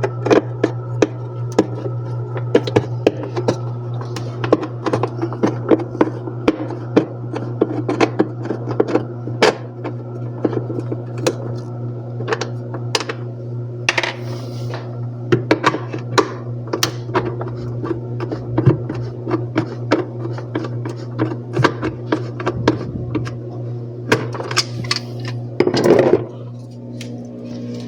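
Many small clicks, taps and knocks of hand tools and screws on the refrigerator's metal and plastic parts as it is taken apart, over a steady low hum that drops away about two seconds before the end.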